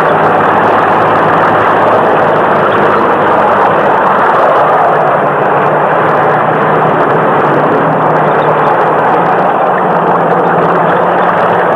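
Loud, steady vehicle engine noise: a dense rushing drone with a low hum beneath it that holds level throughout.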